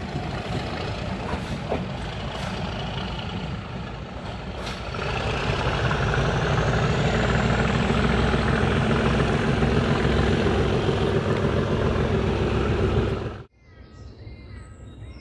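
Diesel locomotive hauling a train of coaches away; its engine works harder about five seconds in, with a whistle that rises in pitch. The sound cuts off suddenly near the end, leaving faint birdsong.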